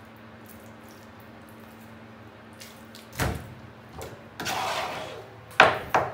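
Wet slaps of skinned burbot being set down on a bare stainless steel counter: one thump about three seconds in, a short swish, then two sharp slaps near the end, over a steady low hum.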